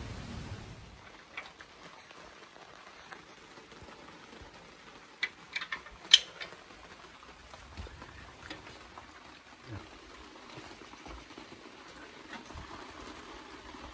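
Faint, scattered clicks and light knocks of hands handling parts of an old motorcycle, the loudest a sharp knock about six seconds in.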